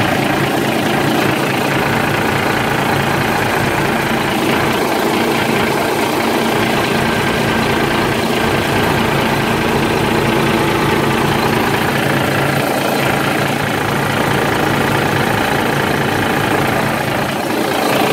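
Freshly rebuilt Mack E7 inline-six diesel engine idling steadily, close up in the engine bay.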